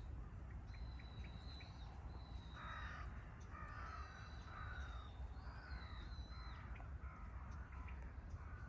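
Crows cawing: a run of harsh calls, one after another, starting about two and a half seconds in, over a faint steady low rumble.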